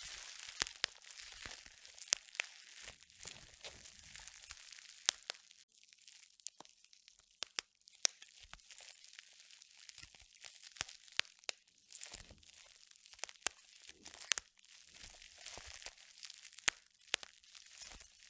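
Irregular crackling and crunching, like something being crushed or crinkled, made of many sharp clicks over a hiss, with a quieter stretch in the middle.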